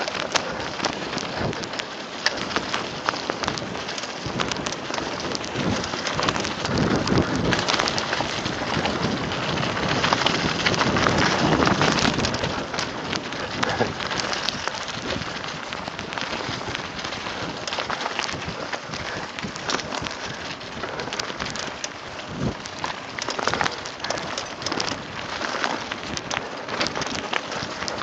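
Mountain bike tyres rolling fast over a dry, leaf-covered dirt trail: a continuous crackling rush dotted with clicks and rattles from the bike, loudest about halfway through.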